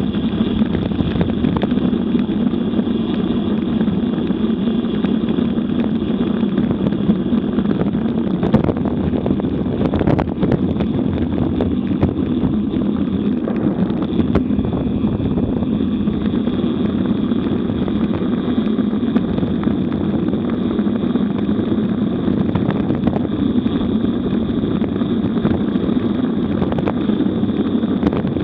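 Wind rushing over a camera microphone on a road bike descending at 35 to 50 km/h, a steady loud rumble. A couple of short knocks come about a third of the way in.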